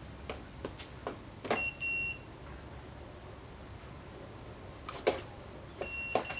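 Self-balancing hoverboard being ridden unsteadily: scattered knocks and clunks of feet and the board's deck, two of them louder, and a steady high electronic beep from the board sounding twice, once near the start and once near the end.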